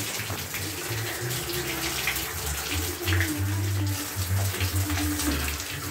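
Water running from a bathtub tap into the tub, with light splashing as a wet cat is scrubbed, over a steady low hum.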